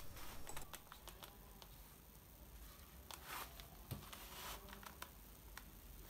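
Faint handling sounds: a hand on a leather belt case and clothing, with soft rustles and light clicks, and a small knock about four seconds in.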